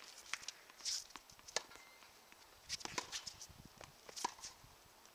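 Tennis play on a hard court: a string of sharp knocks from the ball being struck and bouncing, with footsteps and a short shoe squeak on the court surface.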